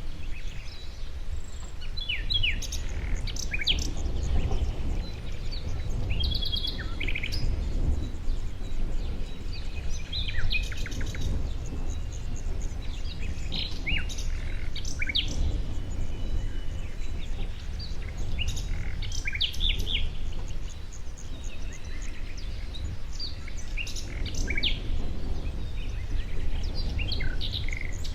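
Songbirds chirping and calling in short clusters every few seconds, over a steady low rumble.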